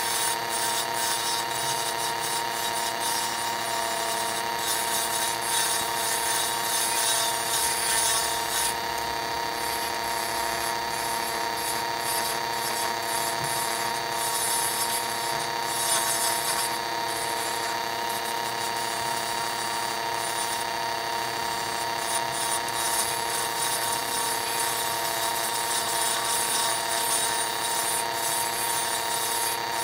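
Wood lathe running with a steady motor whine while a carbide turning tool cuts a zebrano pen blank, the scraping hiss of the cut coming and going.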